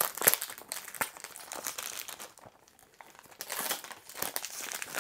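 Clear plastic wrap being torn and peeled off a perfume box, crinkling and crackling, with a quieter pause about halfway through.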